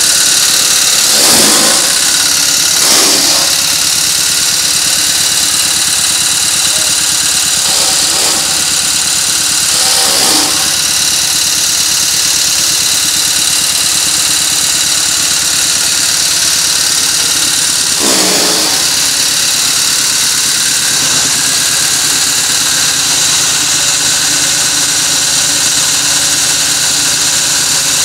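Generator engine running steadily while it powers an electric chaff cutter (straw cutter). There are a handful of brief louder bursts as straw goes through the cutter.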